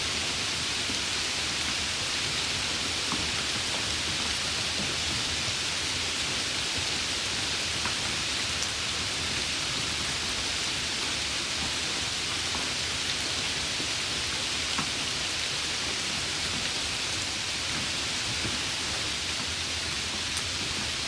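Steady rain falling: an even, dense hiss with a few faint drop ticks scattered through it.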